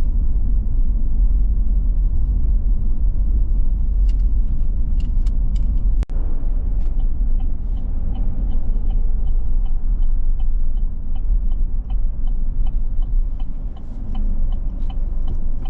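Road rumble and engine noise inside a moving car's cabin. From about halfway on, a turn signal ticks at a regular pace, roughly three ticks a second.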